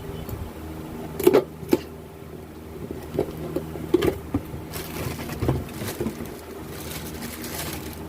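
Sharp metal clinks and knocks of alternator parts and hand tools being handled during assembly, over a steady mechanical hum, with a spell of hiss in the second half.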